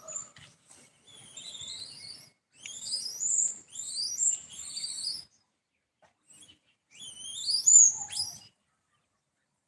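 High-pitched animal squeaks, each call rising in pitch, coming in three bouts with short gaps; the last bout is the loudest.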